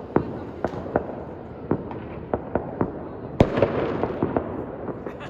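New Year's fireworks and firecrackers bursting, a rapid irregular string of sharp bangs over a continuous rumble of more distant explosions, the loudest bang about three and a half seconds in.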